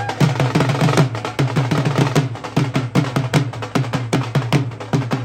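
Two Punjabi dhols played together in a fast, driving rhythm. Deep bass-head strokes, each dropping in pitch, sound under sharp stick cracks on the treble heads.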